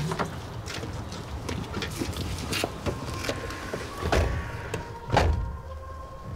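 SUV doors being opened and shut, with two heavy door thuds about four and five seconds in among lighter clicks and knocks. A faint steady tone sounds from about three seconds in.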